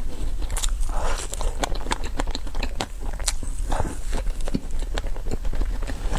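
Close-miked eating of a dessert: biting and chewing with many crisp, sticky mouth clicks and crackles, several a second.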